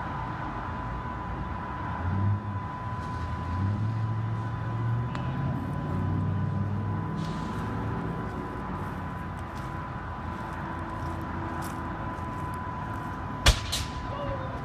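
Motor vehicle engine running and shifting pitch as it moves through traffic, over a steady high tone. About thirteen seconds in comes a single sharp bang, the loudest sound, followed by a smaller one.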